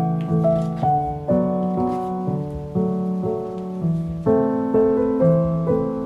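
Background piano music: chords struck about every half second, each left to fade.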